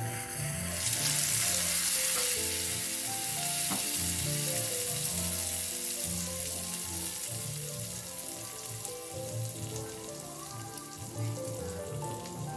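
Hot tempering oil with mustard seeds, chana and urad dal, dried red chillies and curry leaves sizzling as it is poured onto coconut-yogurt chutney. The sizzle comes in about a second in and slowly dies down. Background music plays under it.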